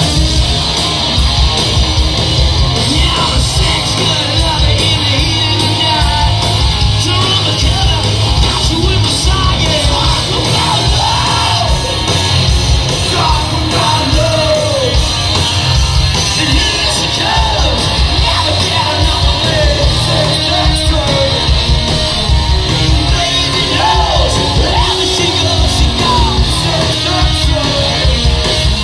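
Live hard rock band playing loudly: electric guitars and drums with yelled vocals.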